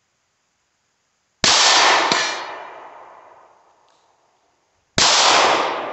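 Two handgun shots about three and a half seconds apart, the first about a second and a half in and the second near the end, each trailing off in a long echo. A short clang follows the first shot, a bullet striking a steel target.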